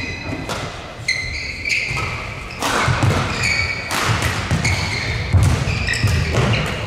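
Badminton singles rally: rackets crack against the shuttlecock several times, with the sharpest hit about five seconds in. Shoes squeak in short high chirps on the court, and footwork lands in low thuds.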